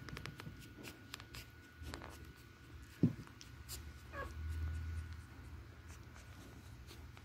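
Newborn beagle puppies giving a faint squeak amid soft clicks and rustling as they nurse, with a single low thump about three seconds in.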